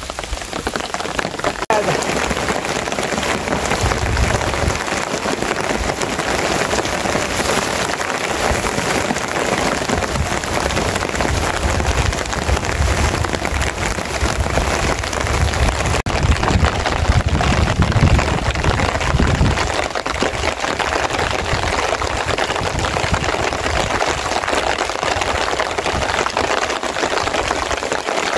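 Steady rain falling, an even hiss of drops throughout, with a few low rumbles now and then.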